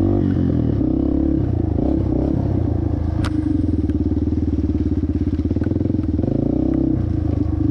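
Yamaha TT-R230's air-cooled four-stroke single-cylinder engine running under throttle on a muddy trail, its note shifting a few times as the throttle changes. A sharp click sounds about three seconds in.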